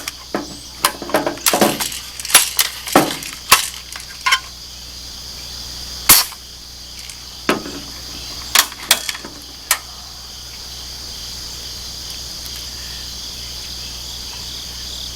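Crosman Legacy 1000 multi-pump air rifle being pumped and handled with a quick run of clicks and knocks, then fired once about six seconds in with a single sharp crack, followed by a few more mechanical clicks. Crickets and insects chirr steadily throughout.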